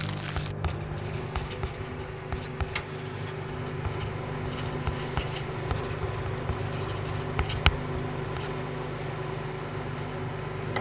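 Pen scratching across paper as words are written, with many short ticks, over a low steady hum.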